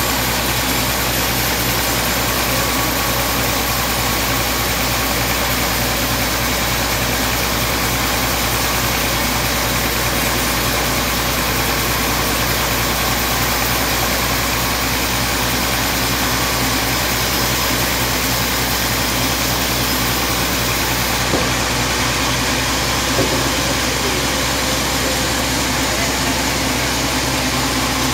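Large sawmill band saw running steadily as a teak log on its carriage is fed through the blade.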